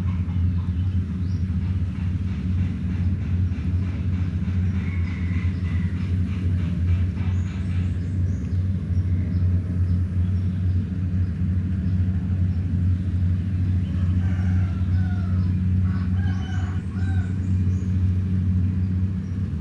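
Rice combine harvester's engine running steadily at a constant speed, a deep even drone.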